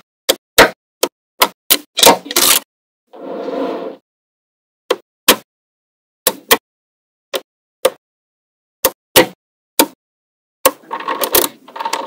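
Small magnetic balls clicking as they snap onto a magnet-ball structure: sharp single clicks about once a second, a second-long rattle of balls a little past three seconds in, and a quick flurry of clicks near the end.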